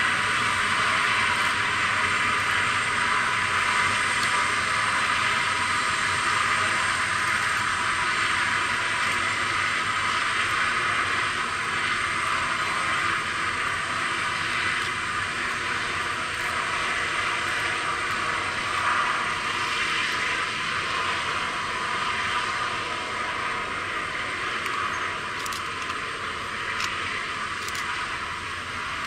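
Antonov An-124-100 turbine noise on the ramp: a steady, loud hiss with a faint high whine above it, easing slightly toward the end as the freighter is moved by its tug.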